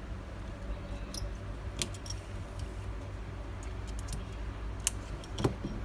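Scattered light metallic clicks and taps of a small precision screwdriver and tiny screws and brackets against an opened iPhone 7 Plus's frame during reassembly, the sharpest a little after five seconds in, over a steady low hum.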